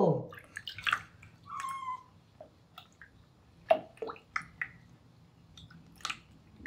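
Water splashing and dripping in a bathroom sink as a wet kitten is washed by hand: scattered small splashes and drips.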